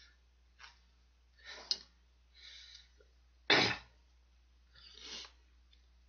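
A man's short, breathy hisses and sniffs, about five of them, with one loud sudden burst like a sneeze about three and a half seconds in, as he reacts to the heat of extremely spicy noodles.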